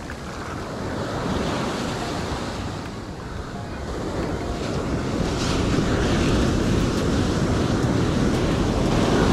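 Ocean surf breaking and washing up onto a sand beach at close range. The wash swells about a second in, eases around three seconds, then builds louder from about four seconds on as the waves break close by.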